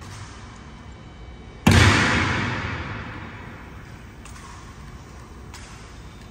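One sharp, loud impact from the honor guard's drill on the stone floor, about two seconds in, echoing through the large marble hall and dying away over more than a second. A few faint clicks follow later.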